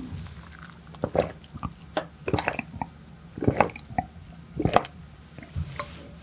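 Close-miked gulps of a drink swallowed from a glass: a run of separate wet swallows, roughly one or two a second.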